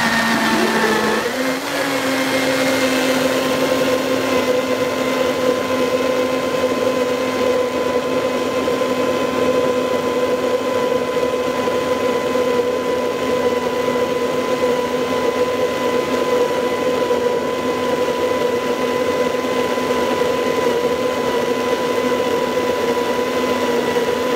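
Vitamix blender motor running at high speed through a jar of vegetables, a loud steady whine. Its pitch steps up slightly about a second in and then holds.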